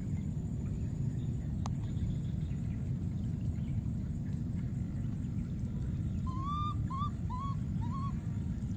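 A baby macaque gives four short, rising-and-falling coo calls in quick succession near the end, over a steady low rumble.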